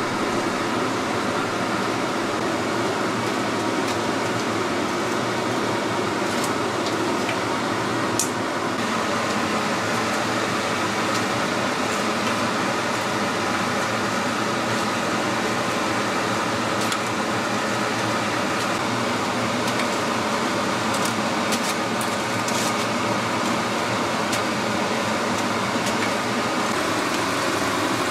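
Hot oil sizzling steadily as dough sticks deep-fry in a wok, with a steady hum underneath and a few light clicks of tongs against the wok and rack.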